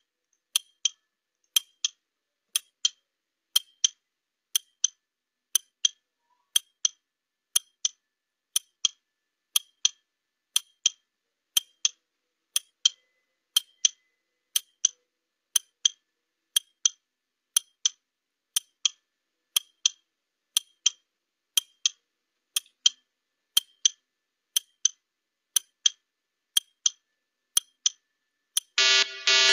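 Countdown-timer clock ticking: sharp, even ticks, roughly one a second, marking the 30-second answer time. At the very end an alarm buzzer starts as time runs out.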